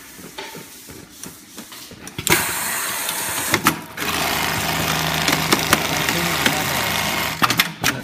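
Automatic Velcro-attaching sewing machine starting up about two seconds in and stitching at high speed, with a low steady motor hum under the stitching noise. It pauses briefly, runs steadily again, and stops near the end, with a few clicks around the start and stop.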